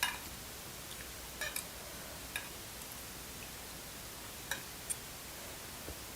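Sparse eating noises: a handful of short, sharp clicks and ticks at irregular intervals over a steady low hiss.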